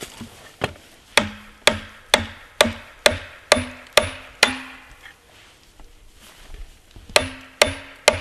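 A nail being hammered into a log with the back of an axe: about nine sharp blows at roughly two a second, each with a short metallic ring, a pause of about two seconds, then four more blows.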